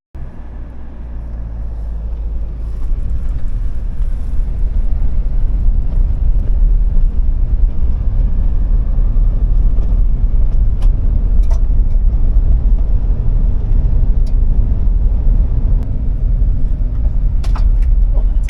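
A vehicle driving: a steady low rumble of engine and road noise that builds over the first couple of seconds and then holds, with a few faint clicks later on.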